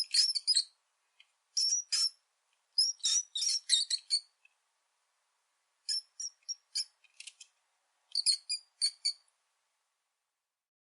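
Rat squeaking: quick runs of short, high-pitched squeaks in five bunches separated by brief pauses, falling silent over the last second and a half.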